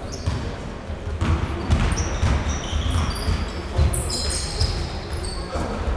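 Basketball bouncing on a wooden gym floor as it is dribbled, with repeated low thuds, mixed with short high-pitched squeaks of players' sneakers on the court.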